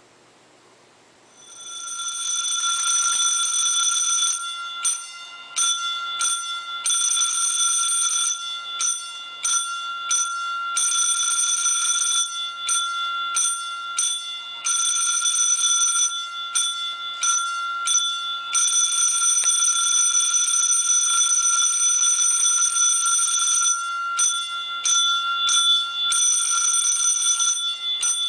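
Electric fire alarm bell of an old school fire alarm system ringing loudly, starting about a second and a half in. The ring is steady but broken several times by quick groups of short gaps.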